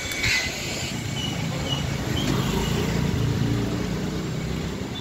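Busy street traffic heard from a moving cycle rickshaw: a motor vehicle's engine running close by, a little louder in the middle, over steady traffic noise.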